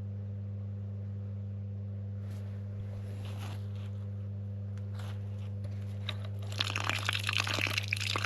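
Repaired Grundfos solar well pump running with a steady low drone. Near the end, water starts to sputter and splash out of the well's spigot as the line fills.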